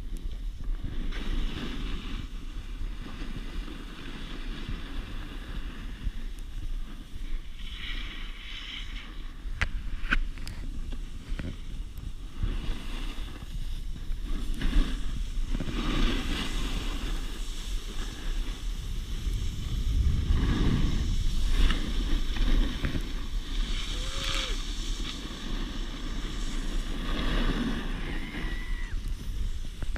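Snowboards sliding and carving over snow, a continuous scraping hiss, with wind buffeting the microphone in a low rumble that is strongest a little past the middle.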